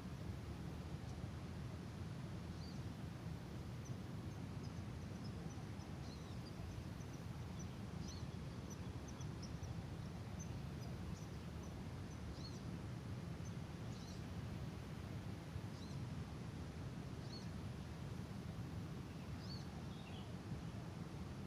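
Steady low outdoor background noise with small birds chirping over it: short, high chirps come thick and fast for the first several seconds, then sparse single chirps every second or two.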